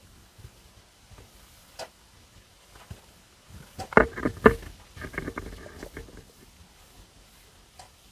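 Stomach rumbling during digestion after a meal: a few faint clicks, then about midway a run of irregular gurgles with two loud pops close together, fading out after a couple of seconds.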